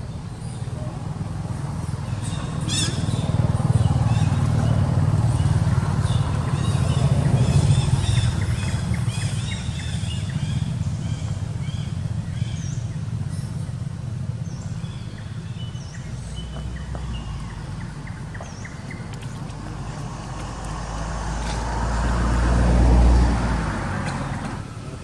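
Motor vehicles passing by, heard as a low engine rumble. A long stretch of rumble fills the first half, with faint high chirps over it. A second vehicle swells to its loudest near the end and then falls away quickly.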